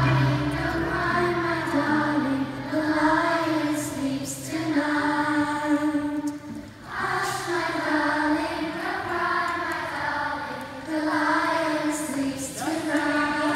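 A large group of children singing together in sung phrases a few seconds long, with short breaks between them.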